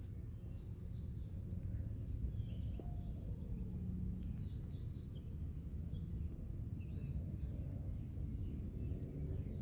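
Outdoor ambience: a low steady rumble with scattered faint bird chirps, and a thin steady high insect tone that fades out about halfway through.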